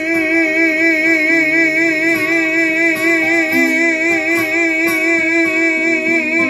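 A male singer holds one long high note with a steady vibrato at the end of a phrase, over two acoustic guitars picking and strumming an accompaniment.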